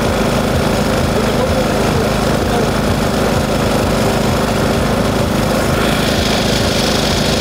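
Boat engine running steadily: a constant even drone with noise over it, unchanging until it cuts off at the end.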